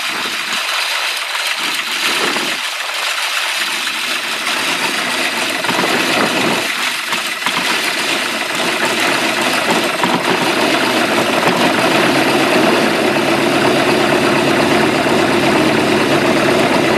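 Carbureted inboard engine of a sterndrive boat idling, heard close up at the open engine hatch while the idle screw on the side of the carburetor is touched up. About six seconds in, the running grows fuller and steadier.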